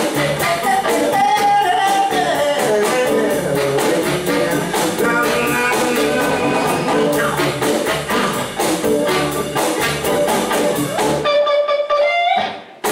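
Live rhythm-and-blues band playing the closing bars of a song: electric guitar, keyboard, upright bass and drums. About eleven seconds in the band stops together and a last chord rings out and fades away.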